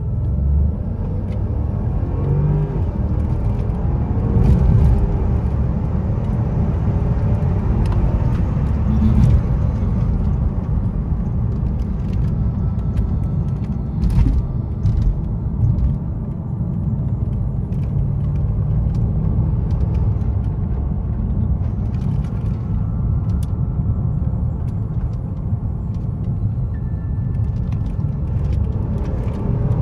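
Mercedes-Benz S550's twin-turbo V8, fitted with catless downpipes and a Stage 2 tune, heard from inside the cabin as the car pulls away from a stop and drives on. The engine pitch rises in the first few seconds, over a steady deep exhaust rumble.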